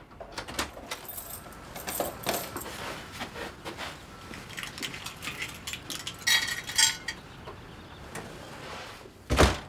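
A glazed front door unlocked and opened with a jangle of keys, then footsteps and rustling as people come in. Keys jingle again a little over six seconds in, and the door is shut with a heavy thud near the end.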